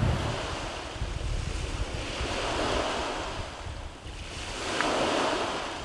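Small waves washing onto a sandy beach, the wash swelling and fading twice, with light wind rumble on the microphone.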